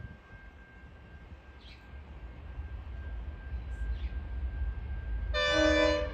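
Diesel locomotives of an approaching passenger train, their engines rumbling louder as they near, then one short multi-note horn blast from the lead locomotive about five seconds in.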